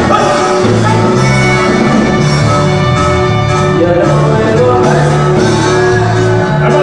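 Live conjunto band playing loud Latin American dance music, with button accordion, electric bass and drums.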